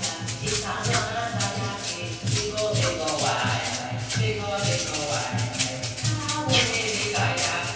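A rattle shaken in a steady rhythm while a voice sings or chants a melody over it.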